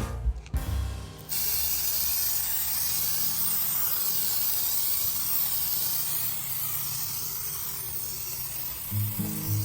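A steady, high hiss that starts abruptly as music cuts off about a second in; guitar music comes back in near the end.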